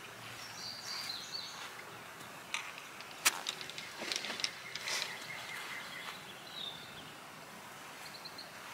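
Outdoor background noise with birds chirping in short high notes. A few sharp clicks or knocks fall in the middle; the loudest comes about three seconds in.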